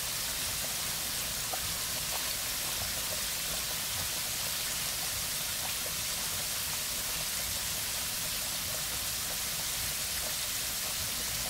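Floured chicken pieces deep-frying in hot oil in an enameled cast-iron Dutch oven: a steady sizzle of bubbling oil.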